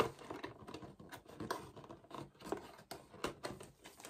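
Hands working a decorative false-book ornament, pushing its folded end into place: irregular scraping, rustling and small taps, with one sharp tap right at the start.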